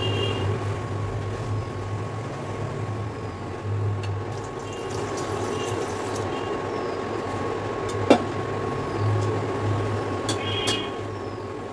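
Hot water poured from a steel pot into a bowl of flour to make a batter, splashing steadily, with a single sharp clank about eight seconds in.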